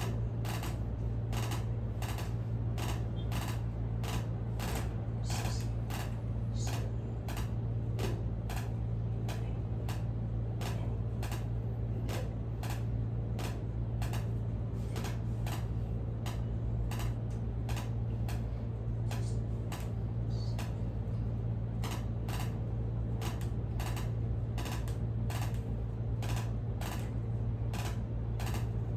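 Sharp clicks at an even rhythm of about one and a half a second, one with each stroke of a shoulder-blade loosening move repeated 50 times on a client, over a steady low hum.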